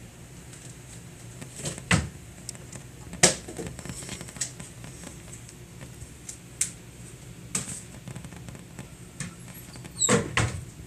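Scattered light knocks and clicks, one loud one about three seconds in and a short cluster near the end, over a low steady hum.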